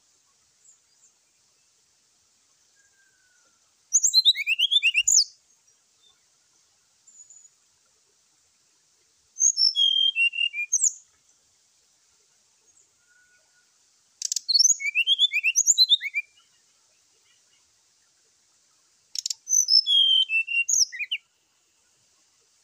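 Brown-chested jungle flycatcher singing its aggressive 'fighting' song: four short bursts of quick, sharp, sliding high notes, each lasting a second or two, about five seconds apart. A faint steady high hiss lies underneath.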